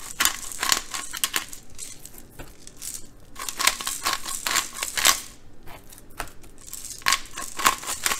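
Disposable grinder-top jar of black peppercorns being twisted, the grinder crunching peppercorns in a rapid run of crackling clicks. It comes in spells of twisting with short pauses between them.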